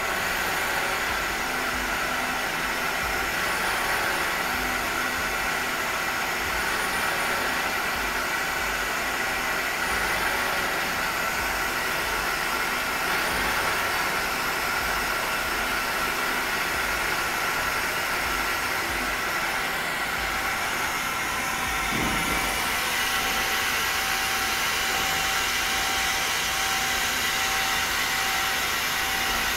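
Mazak CNC lathe circle-milling notches into a brass part with a live-tooling end mill under flood coolant: a steady machine whir with coolant hiss. A brief low shift in the sound comes about 22 seconds in.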